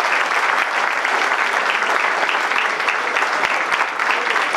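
A crowd applauding, steady hand-clapping throughout.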